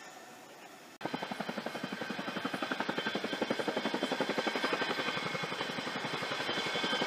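Tandem-rotor Chinook helicopter flying close by, its rotor blades making a rapid, even chop. The chop starts abruptly about a second in and grows steadily louder.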